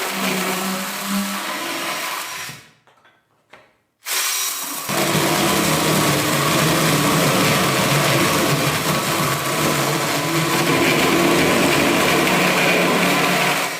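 Electric drill driving a mini chainsaw attachment, sawing through a 5 by 5 cm wooden beam. The motor stops just under three seconds in, starts again about a second and a half later, runs steadily, then cuts off suddenly.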